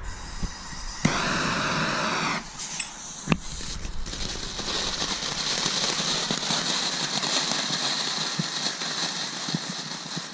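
Small TNT June Bug consumer fountain firework spraying sparks: a steady hiss with fine crackle that starts about four seconds in and dies away near the end. Before it come a short burst of hiss and a single sharp snap.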